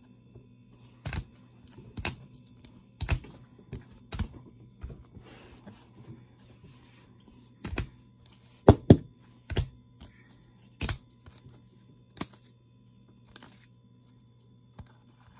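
Hard plastic toploaders holding trading cards clacking against one another as the stack is flipped through card by card, sharp clicks about once a second with the loudest pair about nine seconds in. A faint steady low hum runs underneath.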